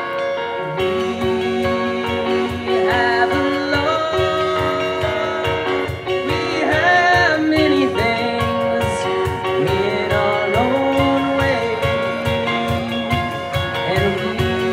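Rock band playing an instrumental passage: drums and the full band come in about a second in under a steady beat, with a lead melody of bending, sliding notes on top.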